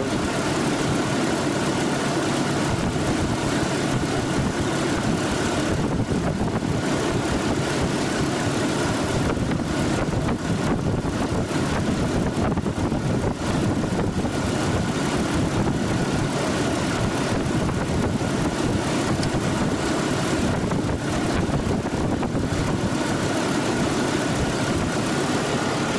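Hummer H3 engine idling steadily, with its air-conditioning compressor engaged and running. A faint, thin, high whine comes and goes over the engine sound.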